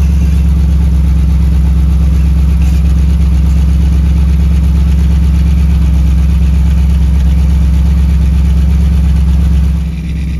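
A 1972 Mercedes 350 SL's 3.5-litre V8 idling steadily, heard close to its tailpipes, becoming quieter near the end. The engine is running rich at idle: its exhaust reads close to 6% CO, which is very high.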